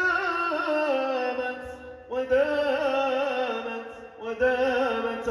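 A man singing a mawwal solo into a microphone, unaccompanied: long ornamented notes in a wavering melody, with new phrases starting about two seconds in and again near four seconds.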